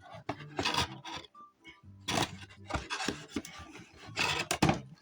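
Handling noise from a cardboard toy box being turned and rubbed, irregular scrapes and knocks with the loudest about two seconds in and again near the end.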